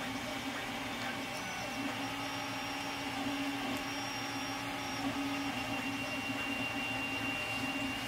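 Creality Ender 3 3D printer printing, with vibration dampers fitted to its X and Y stepper motors. The steppers make a low hum that changes in strength every second or so as the moves change, over a steady fan hum.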